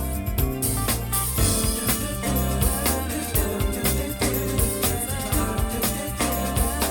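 Instrumental music with a steady drum beat and heavy bass notes, played back through a portable Bluetooth speaker for a sound test.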